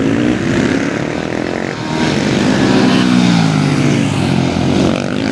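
Several supermoto racing motorcycles running hard together, their engine notes rising and falling in pitch as they accelerate and slow, with one long drop in pitch around the middle.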